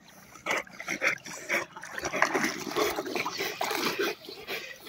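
Rottweiler swimming: water sloshing and splashing around its body in a run of short, irregular splashes, mixed with short sounds from the dog itself.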